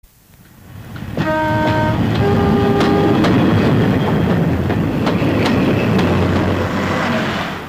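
A train sounds a two-note horn, the second note higher, then runs on with its wheels clicking over the rail joints; the sound swells up at the start and falls away near the end.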